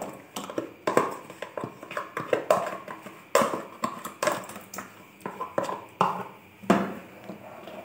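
A plastic ladle stirring in a steel pot of hot milk as ground rice is poured in from a plastic jug, with many irregular light taps and scrapes against the pot.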